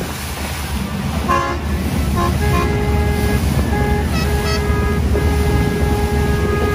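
Boat horns honking: a few short toots about a second in, then long held blasts at more than one pitch overlapping, over the steady low rumble of the boat's engine and wind.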